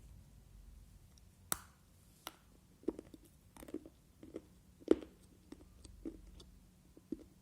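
Raw multani mitti (fuller's earth clay) being bitten and chewed: a sharp crack about a second and a half in, then a run of crunches roughly every half second.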